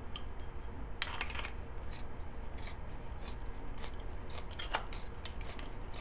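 Hand reamer turned in the cut end of a steel EMT conduit to knock off the burrs: light metallic scraping with a few sharp clicks, the clearest about a second in and near the end.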